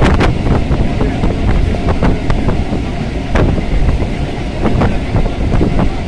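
Suburban electric train running at speed, heard from inside a carriage: a steady heavy rumble with irregular clacks of the wheels over the rails, and wind buffeting the microphone.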